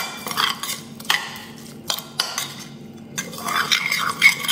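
Metal spoon stirring a wet marinade of chopped onion, garlic, oil and spices in a ceramic bowl, scraping and clinking against the bowl in short, irregular strokes.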